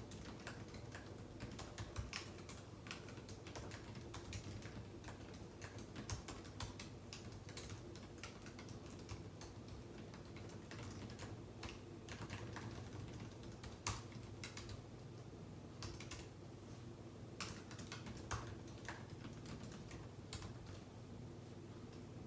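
Computer keyboard typing: an irregular, continuous patter of key clicks with a few louder strokes, over a low steady hum.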